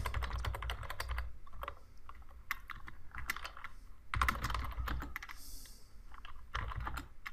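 Computer keyboard typing, runs of quick keystrokes broken by short pauses.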